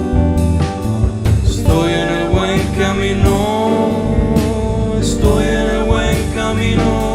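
Band music without lyrics: a drum kit keeps a steady beat under bass and guitar, with a lead melody that slides in pitch through the middle.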